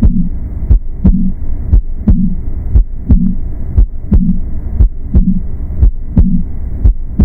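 Auscultation recording of a heartbeat with a murmur: sharp heart sounds and a short low thud repeating about once a second, over a continuous whooshing murmur between the beats.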